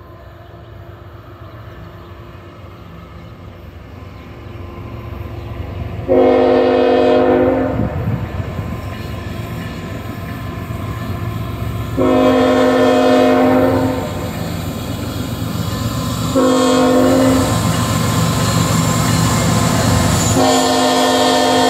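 CSX freight locomotive's air horn sounding the grade-crossing signal: two long blasts, a short one, then a long one that runs on past the end. Under it, the rumble of the approaching train grows steadily louder.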